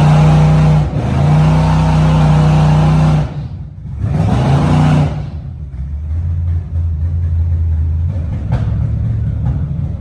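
Cammed LS V8 in a 1996 Impala SS revving hard and held high for about three seconds, then dropping off. It revs up again briefly about four seconds in and settles into a lower, steady run. A short sharp click comes near the end.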